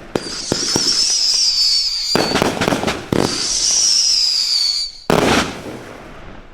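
A 500-gram consumer fireworks cake firing whistle-tailed shots: two long, wavering high whistles, each followed by a loud crackling burst, then a last burst about five seconds in that fades away.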